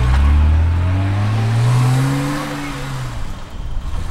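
Car engine accelerating: its pitch rises for about a second and a half, then falls away and the sound fades.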